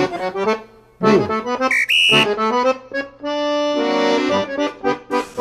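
Background music: a quick tune of short notes, with a chord held for about a second near the middle.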